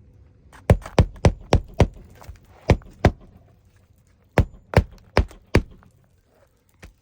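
Hammer driving roofing nails through a 3-tab asphalt shingle into the roof deck: three runs of sharp blows, about eleven strikes in all, each run a few quick hits a third of a second apart.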